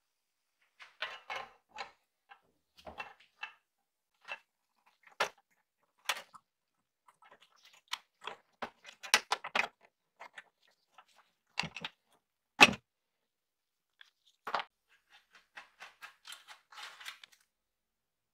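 Scattered clicks, scrapes and knocks of hand work on a rusty shovel: pliers working at the nail that pins the wooden handle in the steel socket, and metal and wood parts being set down on a wooden bench. The sharpest knock comes about two-thirds through.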